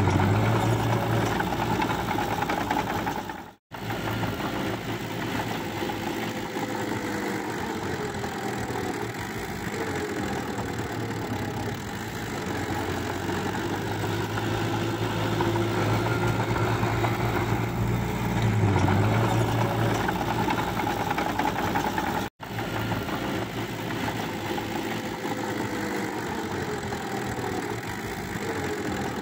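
Diesel engine of a small Hitachi crawler dozer running steadily as the machine pushes mud, its pitch drifting slightly with the load. The sound cuts out completely for an instant twice, about 4 seconds in and about 22 seconds in.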